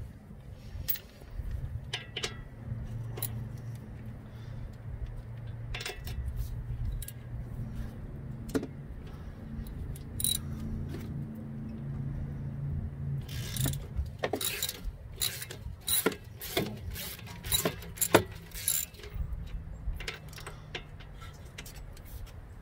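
Metal hand wrenches clinking on the strut-to-steering-knuckle bolts as they are loosened, a scatter of sharp metallic clicks that grows busier in the second half, over a steady low hum.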